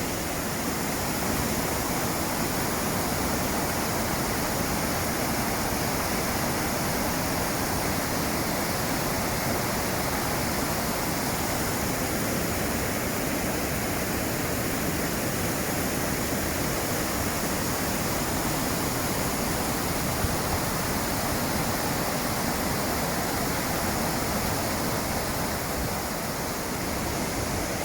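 A waterfall pouring: a steady, unbroken rush of falling water.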